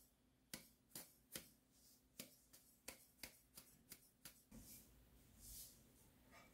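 Stainless steel drum sieve being tapped to sift sugar and salt into a bowl: a run of light, sharp taps, roughly two a second. The taps give way to a soft rustle in the last two seconds.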